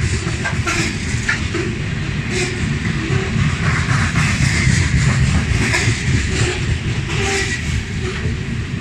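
Covered grain hopper cars of a long freight train rolling past close by: a steady heavy rumble of steel wheels on rail, with scattered clicks and brief squeaks.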